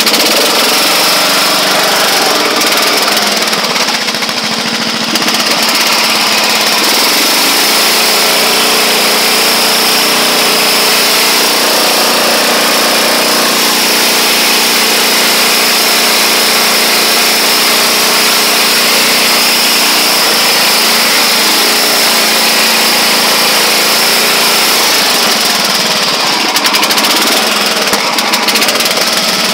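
1979 Roper 8 hp lawn tractor's engine running steadily under load as the tractor pushes through deep snow, its pitch dipping and rising slightly a few times.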